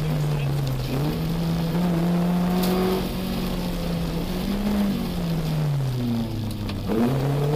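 Rally car engine heard from inside the cabin, running hard at high revs. The note dips just at the start, climbs and holds, sinks slowly for a couple of seconds and then jumps and rises again near the end as the car accelerates.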